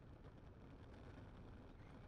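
Near silence: a faint, steady, muffled rumble of a manual wheelchair with a FreeWheel attachment rolling downhill on asphalt.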